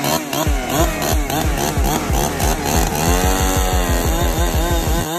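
Ported Husqvarna 372XPW two-stroke chainsaw running at high throttle with quick pitch swings. In the second half its pitch dips and recovers as the chain starts biting into a large log.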